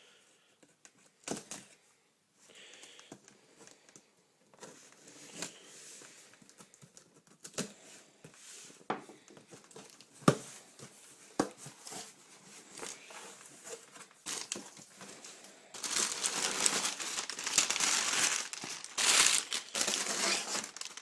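A shipping package being opened by hand: scattered clicks and handling knocks, then from about three-quarters of the way through, loud sustained crinkling of packing paper.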